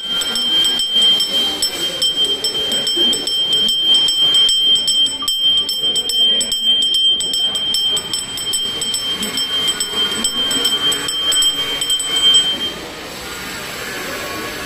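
A ritual hand bell rung continuously during a puja, its clapper striking several times a second over a steady high ring; the ringing stops about 13 seconds in.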